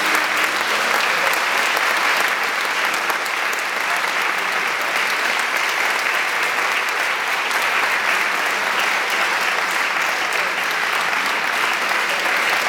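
Audience applauding steadily, a dense, even clapping that holds its level throughout.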